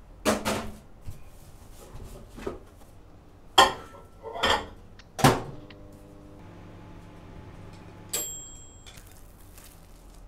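Microwave oven being loaded and run: a few clunks and knocks of the door and a plate going in, then the oven humming steadily for a couple of seconds before it stops with a single high beep about eight seconds in.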